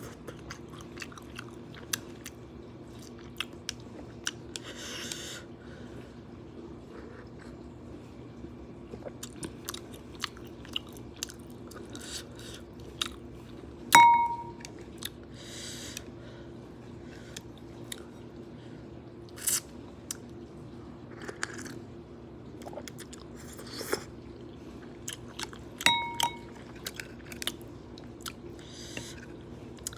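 Close-up chewing and crunching of noodles and fresh vegetables, with many small mouth clicks, over a steady low hum. Twice, about 14 and 26 seconds in, a utensil clinks with a ringing tone against a bowl; the first clink is the loudest sound.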